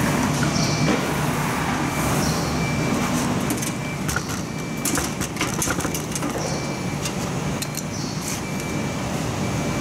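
Steady low machinery hum in a laser-cutter workshop. Over it, a cluster of sharp metallic clicks and clatter about four to six seconds in, and a few more near the end, as the cutting-head access cover on the gantry is opened and the head is handled.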